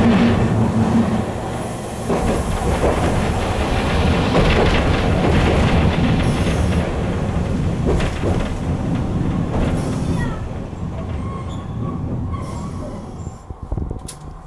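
Hankai Tramway tram running along its track, heard from the driver's cab: steady motor and wheel rumble with rail clatter, a few brief high wheel squeals later on, and the noise growing quieter toward the end.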